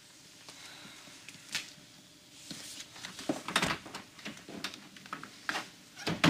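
A few scattered knocks and clicks of a wooden apartment door being handled and shut, with footsteps, the sharpest knock near the end.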